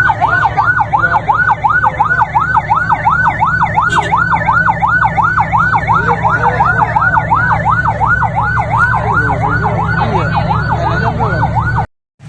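Emergency vehicle's electronic siren in a fast yelp, sweeping up and down about three times a second, over the steady hum of an engine running. It cuts off abruptly near the end.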